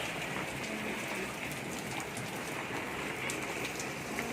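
Steady rain falling: an even hiss with scattered sharper ticks of drops.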